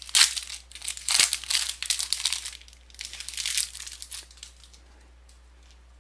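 Plastic wrapper of a basketball trading-card pack being torn open and crinkled by hand, in a run of crackly bursts that die away after about four seconds.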